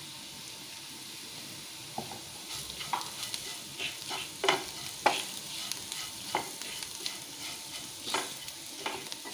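Onions and green chillies frying in oil with a steady sizzle, and from about two seconds in a wooden spatula scraping and knocking against the non-stick frying pan as the mixture is stirred.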